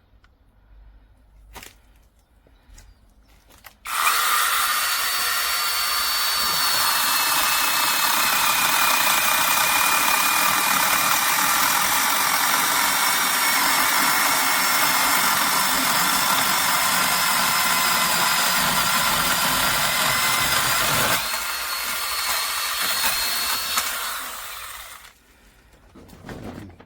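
Brushless mini battery chainsaw starting suddenly about four seconds in and running for about twenty seconds while cutting a branch, its high motor whine sagging slowly in pitch under load. It eases off and stops near the end.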